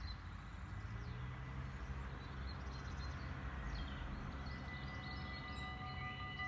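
Birds chirping over a low steady rumble of distant traffic. Near the end the electronic bells of a Dutch automatic half-barrier level crossing start to ring in several steady tones as its red warning lights come on, signalling an approaching train.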